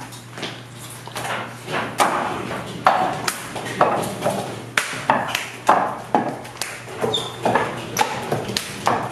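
Hands and forearms striking the wooden arms of a wing chun wooden dummy (muk yan jong): a run of sharp wooden knocks, sparse at first and then about two a second, coming faster toward the end.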